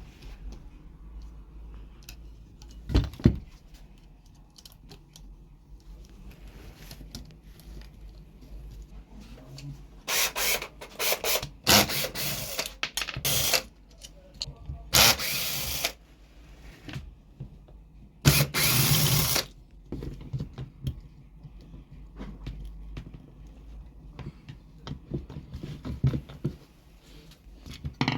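Four short bursts of a small power tool, about a second each, with a thump near the start and light clatter of tools and parts being handled between the bursts.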